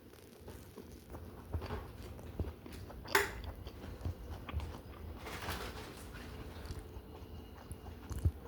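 A person biting into and chewing a fried chicken sandwich close to the microphone, with scattered small clicks and a short, louder noise about three seconds in.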